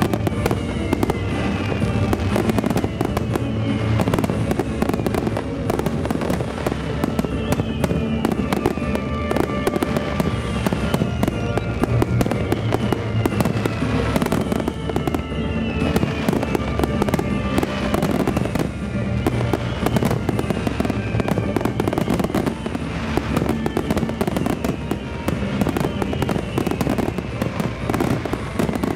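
Wide starmine fireworks finale: a continuous barrage of shell bursts and crackles with no let-up, over loud music from the show's loudspeakers.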